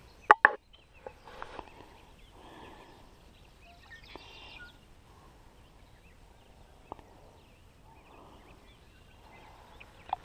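A fishing rod and baitcasting reel being cast: one brief loud burst about half a second in. After it, low sound with scattered faint short calls and a few small clicks.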